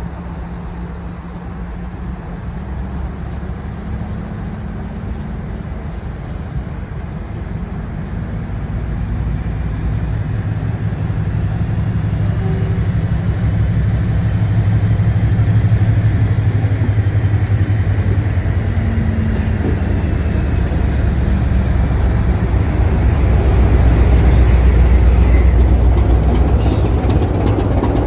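Class 56 and Class 25 diesel locomotives pulling away under power, their engines running with a deep steady note that grows steadily louder as they draw nearer. A faint high whine rises and falls in the middle, and a clatter comes in near the end.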